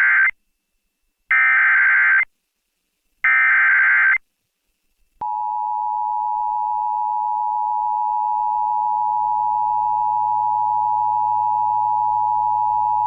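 Emergency Alert System tones. First comes the end of one burst of SAME header data warble, then two more one-second bursts with silence between. About five seconds in, the steady two-tone attention signal starts and holds, marking the start of a severe thunderstorm warning.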